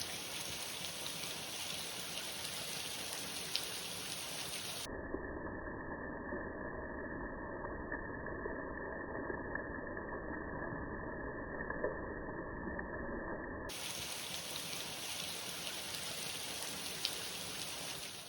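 Steady rushing noise with a few faint clicks. For about nine seconds in the middle it turns muffled, its high end cut off.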